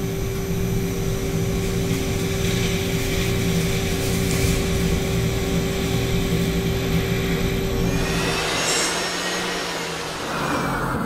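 CNC turning lathe running, the spindle and cutting giving a steady machine whine as a turning insert cuts a spinning metal part. About eight seconds in the sound changes, and near the end a whine falls in pitch as the spindle slows.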